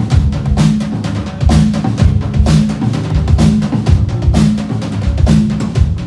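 Live rock band playing loud through a stage PA: a drum kit keeps a steady beat with bass and electric guitars repeating a low riff.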